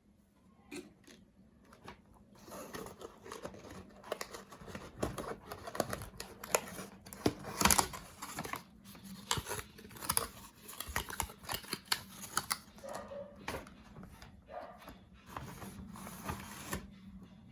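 Packaging being opened by hand: a dense run of snips, rips and crinkles that starts about two seconds in and stops shortly before the end.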